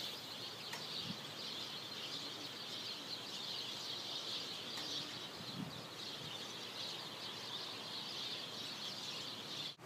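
Outdoor ambience dominated by a steady, high-pitched insect chorus that wavers slightly in loudness and stops abruptly near the end.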